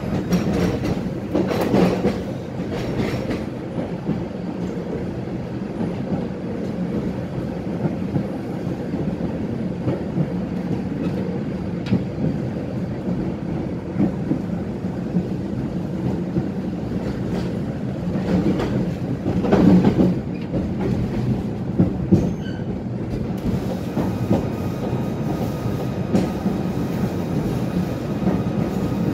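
Inside a Tatra-Yug K1M8 articulated tram running along the track: a steady low rumble of wheels on rail, broken by knocks and clatter, the loudest about two-thirds of the way through. A faint steady high tone comes in over the last few seconds.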